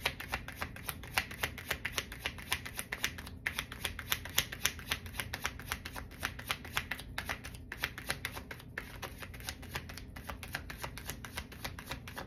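A tarot deck being shuffled by hand: a quick, steady run of light card clicks, several a second, broken by a few brief pauses.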